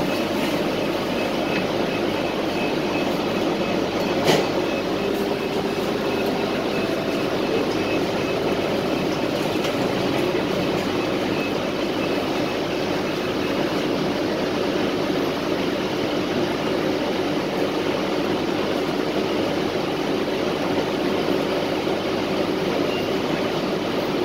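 Steady interior drone of a city transit bus standing at a stop with its engine idling and climate system running. A faint high beeping runs through roughly the first half, and there is a single sharp click about four seconds in.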